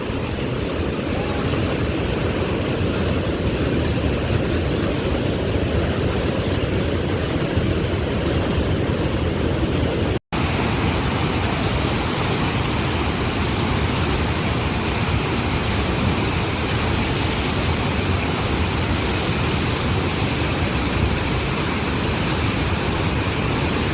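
Waterfall, a steady dense rush of falling water. It cuts out for an instant about ten seconds in and resumes unchanged.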